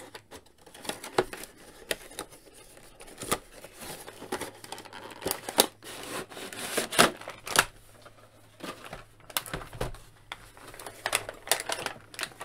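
Plastic blister tray and cardboard window box of a toy package being handled and slid apart: irregular crinkling and crackling of thin plastic with scattered clicks and scrapes, loudest about seven seconds in.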